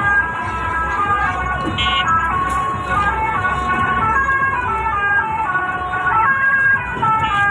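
Telolet horn playing a tune of stepped, steady notes, over the low rumble of the vehicle's engine.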